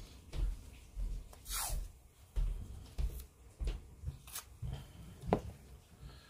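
Handling noise at a hobby bench: irregular small knocks and soft thumps as a roll of masking tape and a plastic model fuselage are picked up and set down on a cutting mat, with a few brief scraping or tearing sounds, the sharpest a little after five seconds in.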